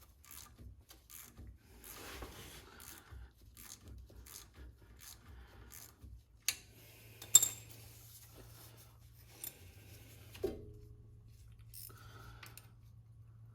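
Hand tools and metal sockets being rummaged through, with scraping, a couple of sharp metallic clicks and a metal clink that rings briefly about ten seconds in, over a steady low hum.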